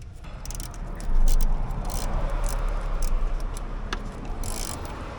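Hands and tools working on a part in a car's engine bay: a steady rustling handling noise with scattered light metallic clicks and rattles, and a louder knock about a second in.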